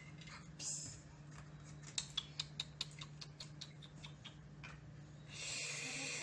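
Light clicks and taps of plastic toy dishes and toy food being handled on a table, followed a little after five seconds in by a louder scraping rustle as the plastic plates are gathered up.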